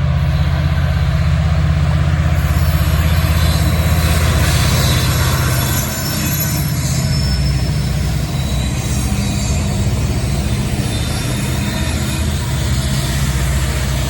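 Norfolk Southern freight train rolling past at speed: a loud, steady rumble of wheels on rail, easing slightly about six seconds in, with thin high wheel squeal above it.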